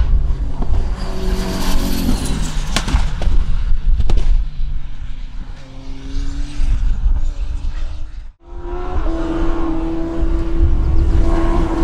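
Race car engines running hard at speed, their pitch shifting over heavy low rumble. About eight seconds in, the sound cuts out abruptly and another engine takes over, held at a steady pitch.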